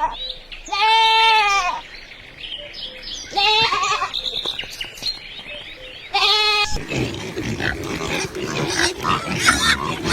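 Goat bleating three times, each a wavering, quavering call of about half a second to a second and a half. After the third bleat a busy jumble of other farm animal noises takes over.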